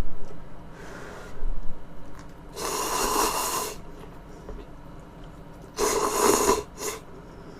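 Two long slurps close to the microphone, about a second each, the second followed quickly by a short one, with a fainter, shorter draw of air before them.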